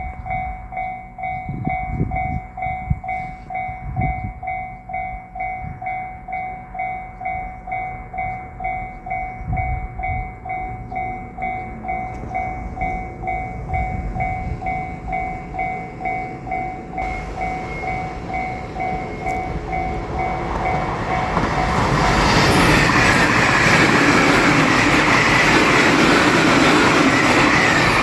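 Japanese level-crossing alarm ringing its two-tone electronic 'kan-kan' at about two strokes a second. About twenty seconds in, a JR Shikoku 8000 series limited express electric train rushes through the crossing, its noise swelling to loud and drowning out the bell.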